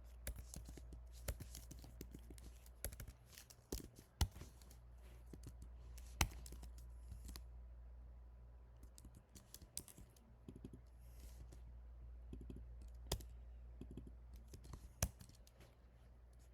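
Typing on a computer keyboard in irregular runs of key clicks, busier in the first half and sparser later, with a few sharper single clicks, over a steady low hum.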